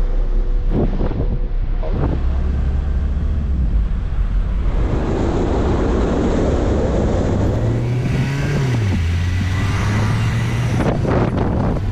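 A motor vehicle's engine running under a noisy rush. Its low drone shifts up in pitch about two seconds in, then rises and falls back briefly near the end.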